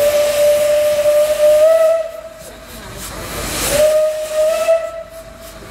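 Narrow-gauge steam locomotive 83-076 blowing its whistle on one steady note. The whistle drops away about two seconds in, a burst of steam hiss comes about three and a half seconds in, and then the whistle sounds again until just before the end.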